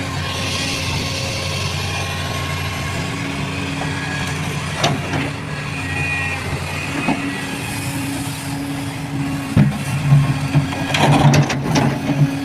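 Heavy machine's engine running steadily, with scattered metallic knocks and clanks that come more often in the last few seconds.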